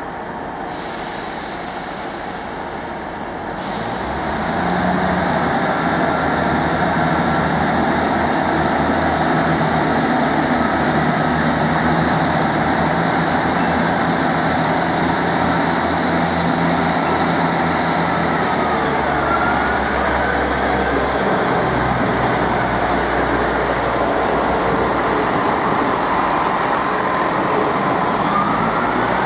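Class 158 diesel multiple unit's underfloor diesel engines running, stepping up in loudness about four seconds in as the unit powers up, then holding a steady heavy drone as it pulls along the platform, with faint rising whines in the second half.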